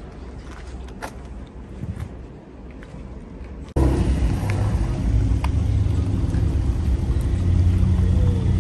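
Low background rumble with a few sharp clicks, then car engine rumble cuts in suddenly about four seconds in and carries on loud and steady.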